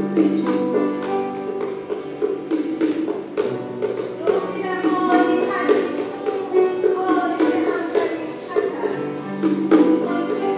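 Music: a melody played over long held low notes, with a steady beat of sharp plucked or struck strokes.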